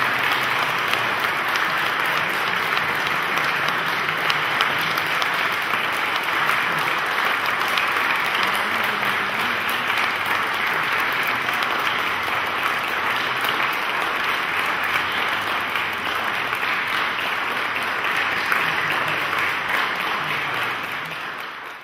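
Audience applauding, a steady clapping of many hands that fades out near the end.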